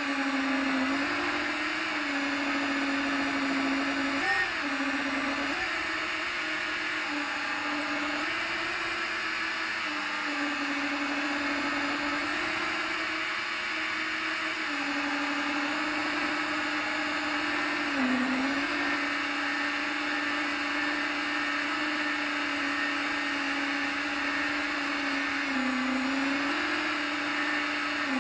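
FPV quadcopter's electric motors and propellers whining steadily in flight, the pitch dipping briefly several times as the throttle is eased and then picking back up.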